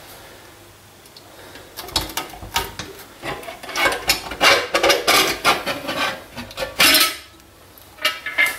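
Stainless-steel stovetop pressure cooker being opened once its pressure has dropped: the clamp lever clicks, the lid scrapes and clatters against the pot rim as it is twisted free, with a last clank near the end as it comes off.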